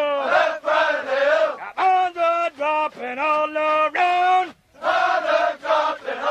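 Male voices chanting a Marine Corps marching cadence in sung call-and-response phrases.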